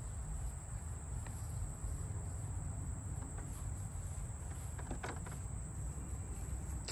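Insects chirring steadily in a high thin tone over a low outdoor rumble, with a few faint clicks about five seconds in.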